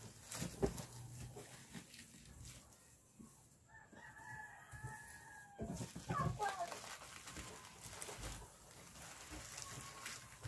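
A rooster crowing once, a long held call starting about four seconds in and ending in falling notes. Under it are the rustle and crinkle of burlap mesh and plastic sheeting being handled.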